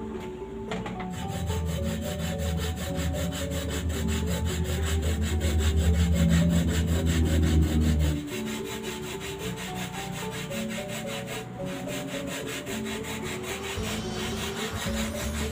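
Hand grater rasping in quick, even strokes, louder for the first half. Soft background music plays underneath.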